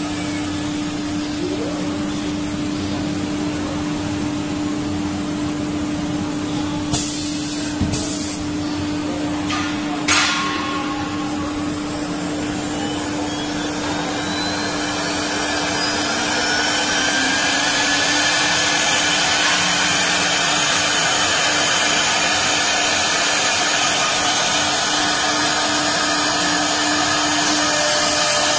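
Three-spindle CNC wood router running, its spindle motor humming steadily while the bit cuts the board, with a few sharp knocks between about seven and ten seconds in. About halfway through a rising whine climbs in pitch, and from then on the machine runs louder with a high whine.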